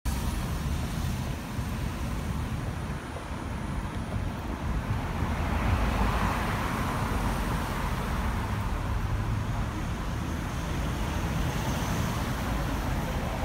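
Street traffic: cars driving past close by, a steady low rumble of engines and tyres that swells to its loudest about six seconds in.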